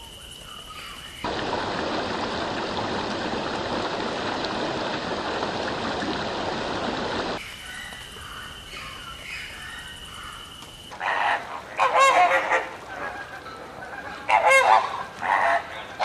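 Large waterbirds honking loudly in groups of calls from about eleven seconds in. Before that there is a steady rushing noise for about six seconds, and quieter stretches of faint bird calls over a thin steady high whine.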